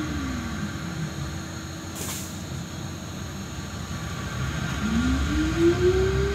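Heard from inside a Solaris Trolino 12 trolleybus: the electric traction drive whines, falling in pitch as the vehicle slows at the start. A short hiss of air comes about two seconds in. Near the end the whine rises again as the trolleybus picks up speed.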